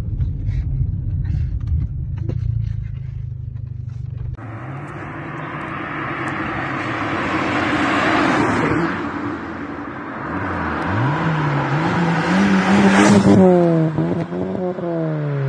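Low in-cabin drone of a Mk4 VW Golf under way. After a cut, a car passes close by with rising tyre and engine noise. Then the Golf accelerates away, its exhaust note climbing in pitch and loudest about two-thirds of the way through, with gear changes near the end.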